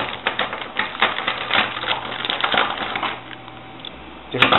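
Rapid clicking and rattling of the CPU cooler's small mounting hardware (screws, stoppers, brackets in their packets) being handled for about three seconds, then one sharp knock near the end.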